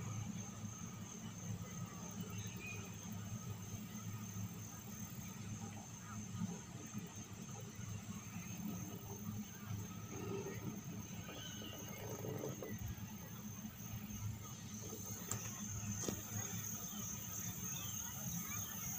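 Quiet ambience aboard a moving chairlift: a steady low hum with a faint, high-pitched pulsing whine above it.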